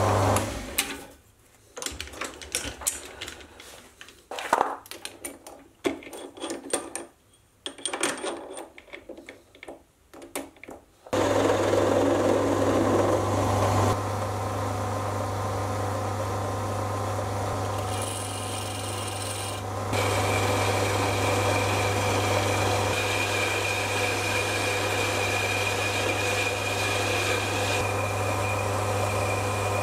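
Sieg C3 mini metal lathe running with a steady motor hum, stopping about a second in. Scattered handling clicks and rustles follow. About 11 seconds in the lathe starts again and runs steadily, turning a half-inch steel rod, and a thin steady whine joins about 20 seconds in.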